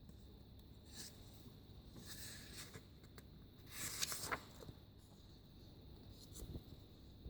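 Faint rustling of magazine pages being handled and turned, in soft scattered swishes, the loudest about four seconds in.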